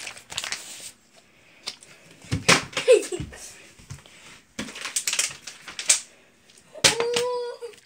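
Plastic water bottle being flipped and clattering onto a wooden floor: a string of sharp knocks and thuds, the loudest about two and a half seconds in and again between five and seven seconds in.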